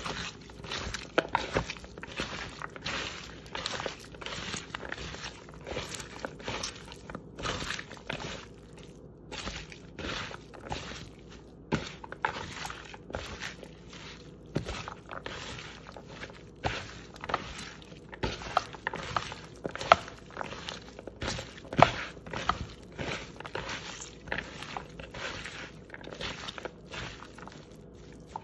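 Hands rubbing seasoning, chopped onions and bell peppers into raw beef cubes in a bowl: a run of soft rubbing and scraping strokes, a few a second, with occasional sharper clicks.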